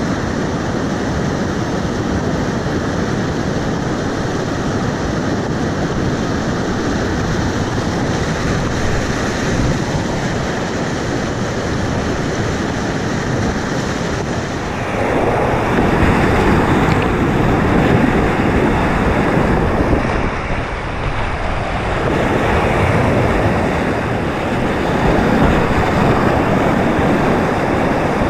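Rushing whitewater of a river rapid: a steady wash of water noise that grows louder about halfway through.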